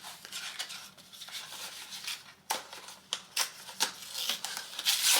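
Packaging being opened and handled: paper and cardboard rustling and crinkling in irregular bursts, with sharp clicks and taps, the loudest rustle near the end.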